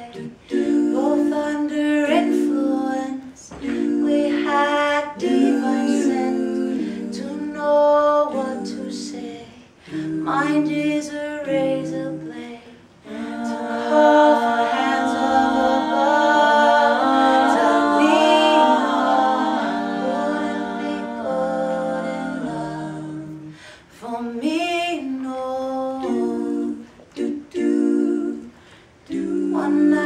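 Female vocal quartet singing a cappella in harmony, in phrases broken by short pauses, with a long held passage through the middle that is the loudest part.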